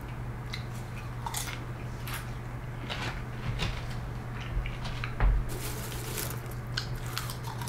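Hand rummaging through popped popcorn in a stainless steel bowl and a man chewing a crunchy mouthful, in scattered small crackles and clicks. A dull thump comes a little after five seconds in.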